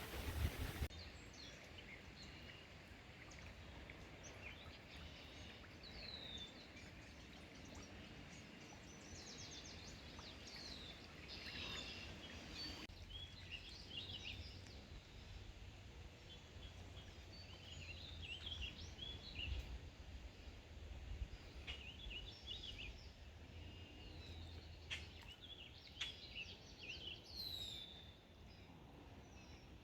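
Several birds chirping and calling, quietly and on and off, over a low rumble.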